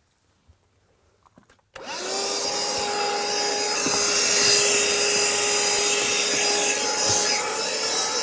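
Cordless handheld vacuum cleaner switched on suddenly about two seconds in and running with a steady whine, vacuuming dirt out of a car's cabin air filter housing under the dash.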